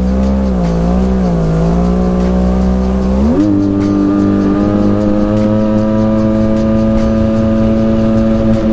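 Jet ski engine running under way. Its pitch wavers for about three seconds, then rises as the throttle opens and holds steady at higher revs.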